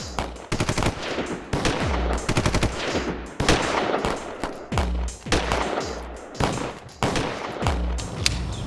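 Rapid automatic gunfire in long bursts of many shots, with a few short pauses between bursts.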